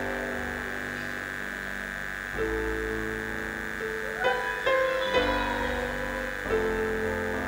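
Slow keyboard music: held chords that change every second or two, over a steady high-pitched hum.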